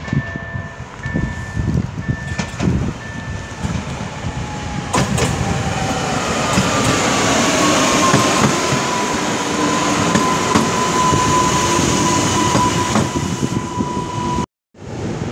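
EN98-001 electric multiple unit running past along the platform: a rumble of wheels on rails with a steady electric whine that drops slightly in pitch, then holds. About a second before the end the sound cuts out abruptly.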